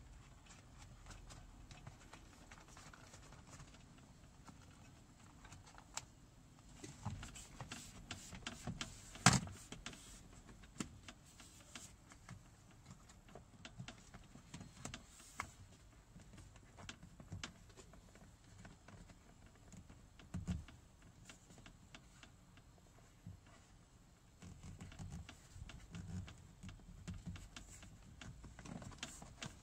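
Scattered small plastic clicks and rattles of car door trim, clips and wiring being handled, with a sharp knock about nine seconds in and another about twenty seconds in.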